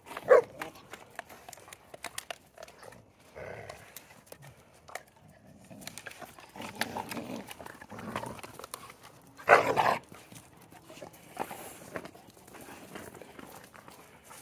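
Dogs scuffling together, with two loud, short dog sounds, one just after the start and a stronger one about two-thirds of the way through, amid a scatter of small clicks and knocks.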